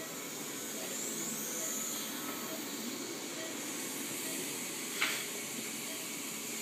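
Steady hiss of operating-room background noise from ventilation and running equipment, with one short click about five seconds in.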